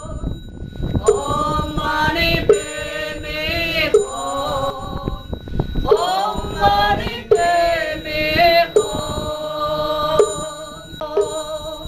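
Buddhist mantra chanting sung as music: voices in slow melodic phrases that begin anew every second or so.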